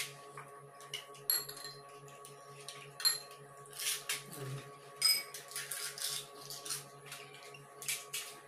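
Spoons clinking against small glass bowls and plates, with scattered clicks as crisp gol gappa puris are cracked open and filled during fast eating. The clinks are irregular, several short sharp ones a second at the busiest moments, some with a brief high ring.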